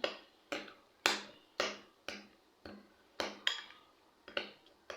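A spoon knocking against a bowl while stirring a thick mayonnaise, cheese and garlic sauce: a string of sharp clinks, roughly two a second.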